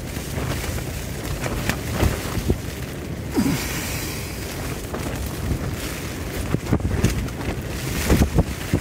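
Strong storm wind buffeting a single-skin tent: a steady rushing and rumbling with wind on the microphone, broken by sharp snaps of the fabric flapping in the gusts.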